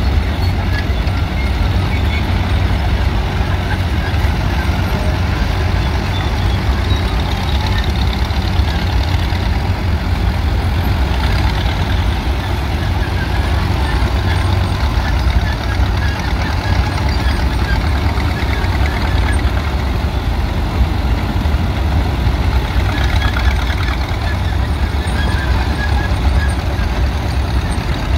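Engines of antique crawler tractors running as the machines drive past one after another, a steady low rumble.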